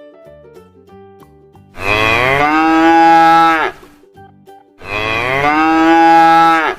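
A cow mooing twice, each moo a long call of about two seconds that rises at the start, holds, and drops away at the end. Soft background music plays in the gaps.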